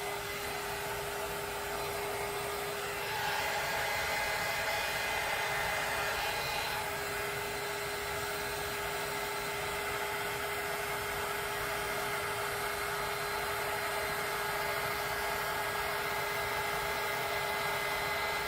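Handheld heat gun running steadily, a blower hiss over a steady motor hum, getting slightly louder about three seconds in.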